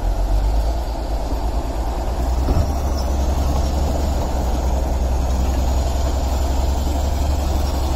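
Crawler bulldozer's diesel engine running steadily with a deep low rumble as the dozer moves over coal, with a single brief knock about two and a half seconds in.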